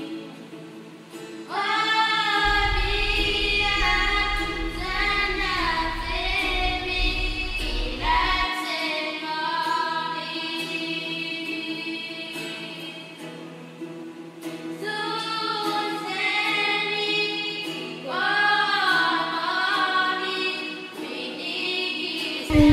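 Background music: a choir of voices singing a slow, flowing melody, with a low bass layer under it from about two seconds in to about eight seconds. At the very end a loud, steady conch-shell blast cuts in.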